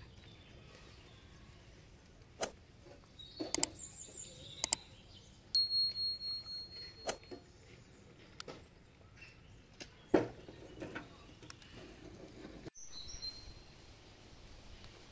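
A small metal spoon tapping and clinking against spice jars and an enamel plate, a scatter of sharp clicks and light taps, one with a ringing note that lasts about two seconds.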